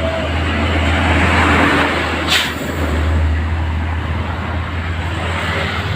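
A large bus passing close: a deep steady engine drone with road noise swelling about a second in, and a short sharp air-brake hiss a little over two seconds in.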